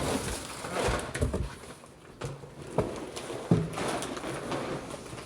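A large bag of dry kibble being handled: rustling packaging with a few sharp knocks, the loudest about three and a half seconds in.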